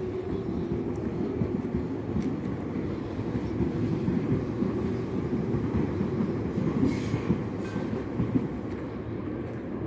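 Tobu Tojo Line electric commuter train running past, a steady rumble of wheels on rail with many short knocks through it.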